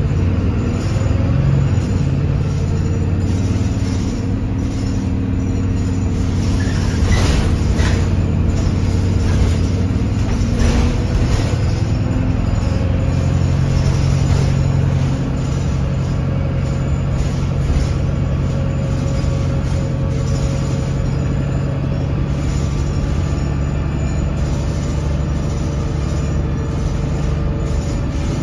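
Alexander Dennis Enviro200 Dart midibus on the move, heard from inside the passenger saloon: a steady drone from the diesel engine and Voith automatic gearbox that steps up in pitch about halfway through. Two brief knocks come from the bus body about a quarter and a third of the way in.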